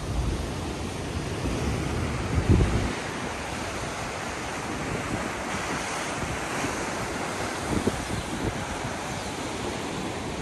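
Ocean surf breaking and churning against rocky sea cliffs, a steady rushing wash. Wind buffets the microphone in low gusts, hardest about two and a half seconds in and again near eight seconds.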